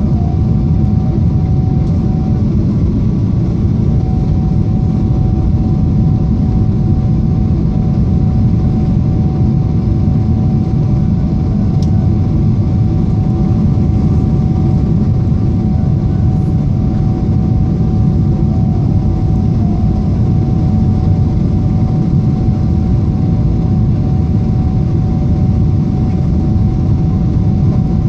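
Cabin noise inside a Boeing 777-300ER: a loud, steady low rumble of its GE90 engines and airflow, with a faint steady whine.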